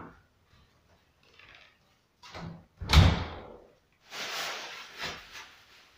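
A glass-paned door being pushed shut, with a lighter knock and then a solid thud as it closes about three seconds in. Then a second or so of rustling plastic sheeting at the top of the window frame.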